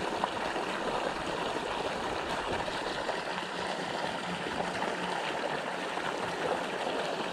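Steady rushing and splashing of water pouring from an inlet pipe into a pond.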